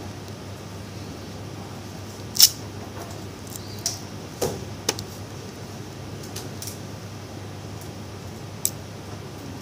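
A few sharp clicks and light taps from hands handling a smartphone's battery and opened frame, the loudest about two and a half seconds in, over a steady low hum.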